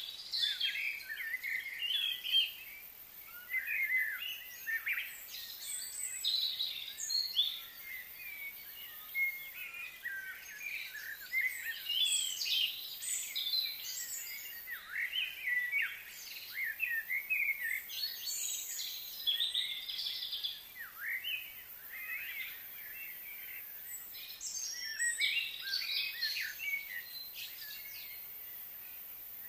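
Several birds chirping and calling over one another: a busy stream of short, quick chirps that rise and fall in pitch, with brief lulls.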